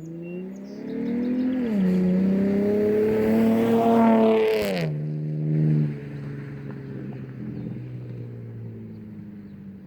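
A car engine accelerating through the gears: its pitch climbs, drops at a shift about two seconds in, climbs again and drops at a second shift about halfway through, then settles into a lower steady drone that fades.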